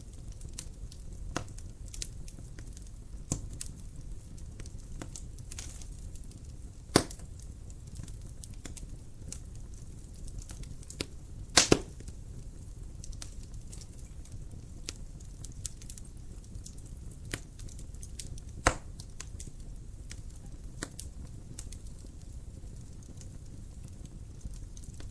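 Wood fire crackling in a fireplace: scattered snaps and pops over a low, steady rumble of the flames. The loudest pops come about seven seconds in, as a quick double pop near the middle, and once more later on.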